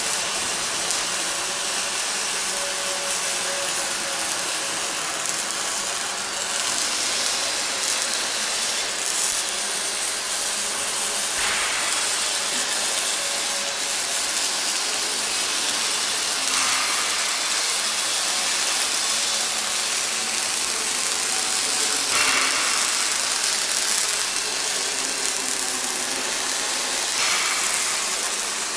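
Welding arc crackling and hissing steadily as a steel frame is welded, with brief sharper bursts every few seconds.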